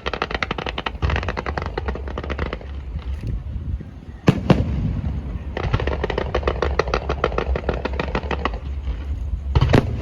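Aerial fireworks going off: fast strings of crackling pops, with a single loud shell burst about four seconds in and another near the end.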